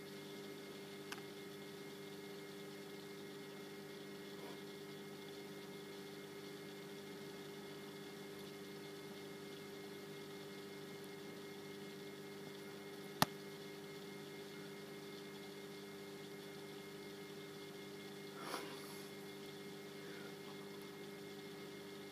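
Steady electrical hum of reef aquarium equipment, several pitched tones held without change over a faint hiss. A single sharp click comes about thirteen seconds in.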